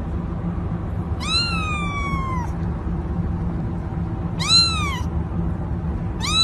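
A cat meowing three times: a long call that rises briefly then slides down, then two shorter rise-and-fall meows, the last near the end, over a steady low hum.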